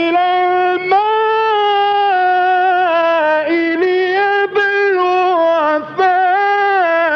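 A male Qur'an reciter chanting in the melodic Egyptian mujawwad style. He holds long, ornamented notes with only a few short breaks.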